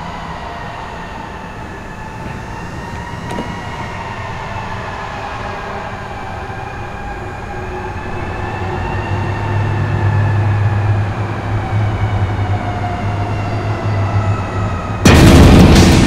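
Sustained atmospheric drone of slowly wavering tones, with a deep hum swelling in from about halfway. About a second before the end, loud heavy music crashes in.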